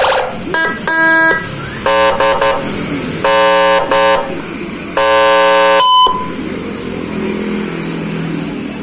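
Electronic police-escort siren unit sounding a series of loud horn-like blasts of varying length, then a short high beep about six seconds in, followed by a quieter, lower wavering tone.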